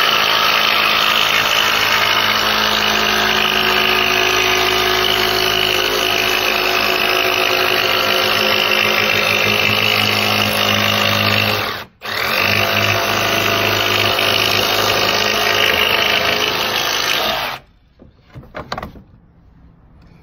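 Electric power saw cutting through a sheet of plywood, running steadily, cutting out for a moment about twelve seconds in and starting again, then stopping a few seconds before the end, followed by a few light knocks.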